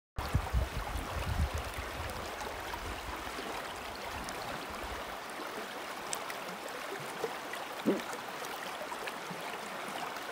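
Creek water running steadily, an even rushing noise, with uneven low rumbling for the first few seconds. A faint short chirp comes about eight seconds in.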